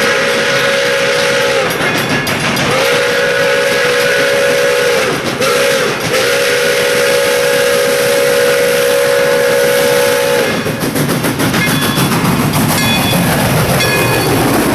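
Train horn sounding the grade-crossing signal: two long blasts, a short one, then a long one, over a steady rushing noise.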